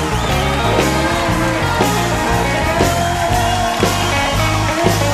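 Rock music with a steady drum beat and bass.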